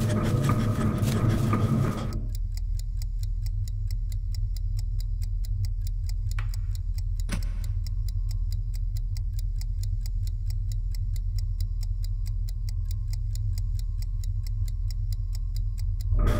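Analogue chess clock ticking fast and evenly, starting about two seconds in, over a low steady drone. A single sharp knock comes about seven seconds in, as a move is made.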